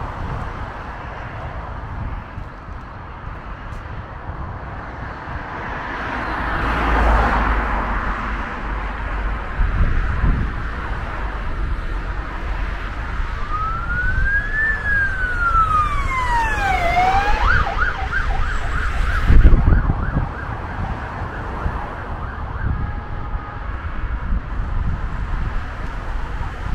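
Road traffic on a multi-lane street with an emergency vehicle's siren: one slow wail rising and falling in pitch about halfway through, then switching to a fast yelp for a few seconds. A brief loud rush of noise comes during the yelp.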